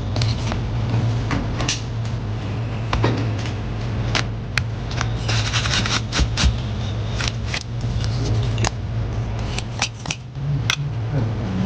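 Scattered small clicks and light taps of tools and parts being handled at a repair bench, over a steady low hum, with a brief hiss about five seconds in.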